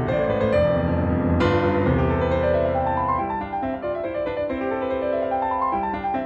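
Piano music, a melody of short notes, twice climbing upward in quick steps.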